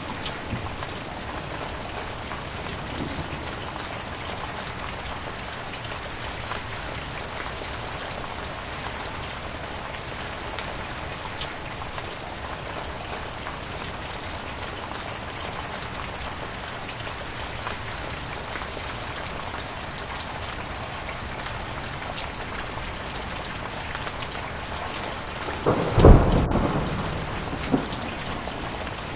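Heavy rain falling steadily. Near the end a single loud, low clap of thunder breaks in and dies away within a couple of seconds.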